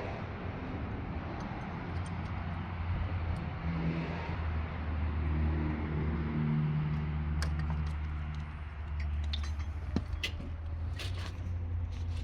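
Vehicle engine running with a steady low hum that grows stronger and more pitched about a third of the way in, then sharp clicks and rattles over it in the last few seconds.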